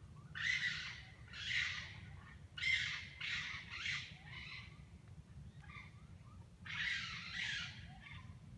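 Raccoons fighting, giving harsh screeches in bursts of about half a second: two, then a quick run of four, then two more near the end.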